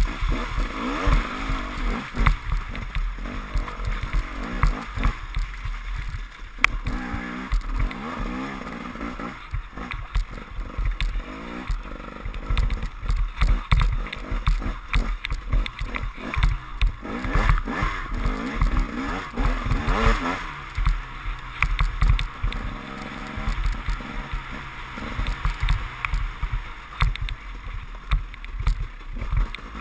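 KTM enduro motorcycle engine revving up and down as the bike rides a rough, muddy trail, with frequent knocks from bumps and a low wind rumble on the microphone.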